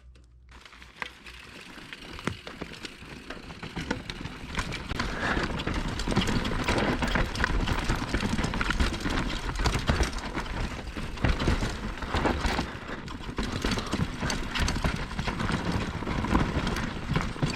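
Mountain bike riding down a rough dirt trail: tyres crunching over dirt and the bike rattling with many small knocks, over a low rumble of wind on the microphone. It starts quieter and grows louder about four seconds in as speed builds.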